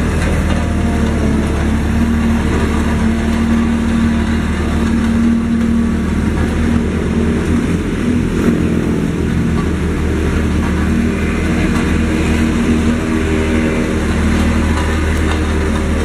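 Diesel engine of a Sakai TG25 road roller running steadily at a constant speed.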